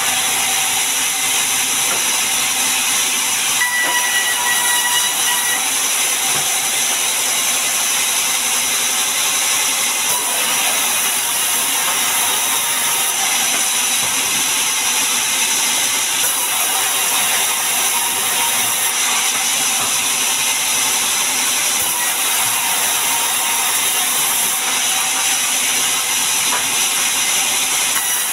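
Large band saw running, its blade ripping a long mahogany board lengthwise with a loud, steady hiss that keeps up without a break.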